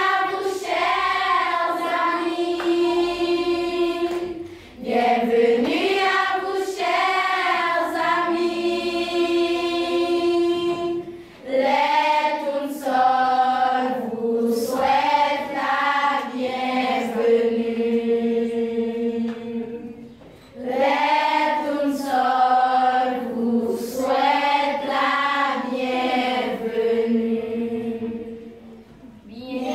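A group of girls singing a welcome song together. They sing in phrases with long held notes and a short breath between phrases, about every six to nine seconds.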